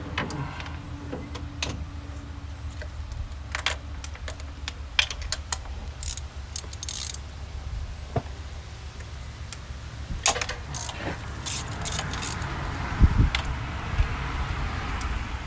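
Scattered light metallic clinks and jingles of tools being handled at the engine bay, over a steady low hum.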